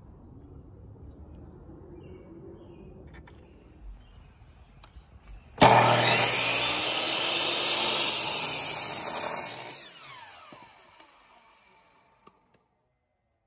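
Electric compound miter saw starting abruptly about halfway through and running loud for about four seconds as it cuts a wooden board. After that the blade winds down with a falling whine until it stops.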